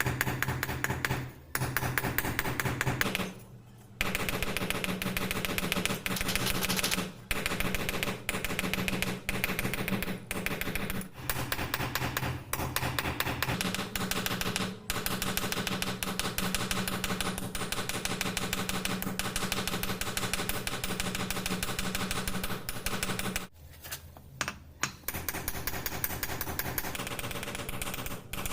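Rapid mechanical hammering on steel, many blows a second over a steady motor hum, typical of a powered hammer working a chisel's tip during forging. It stops briefly several times, with a longer pause near the end.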